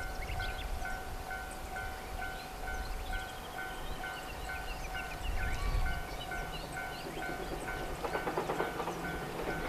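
Railway level-crossing warning bell ringing, an even electronic ding repeating a few times a second over a steady tone, with birds chirping. In the last two seconds a rattling train rumble builds.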